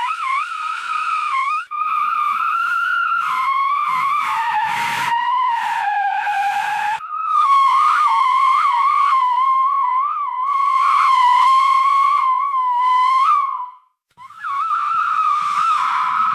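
Car tyres squealing in a series of long, wavering, high-pitched screeches, each lasting a few seconds, with brief breaks between them and a short silence near the end.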